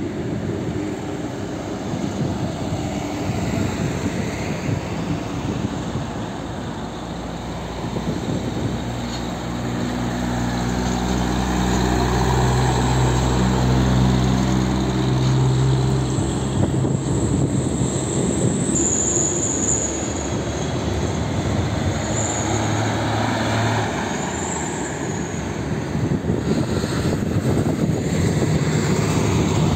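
Diesel lorries passing on a highway, with steady tyre and traffic noise. A container truck's engine drone builds, peaks as it goes by close in the middle, then fades, while a faint high whistle comes and goes in the second half.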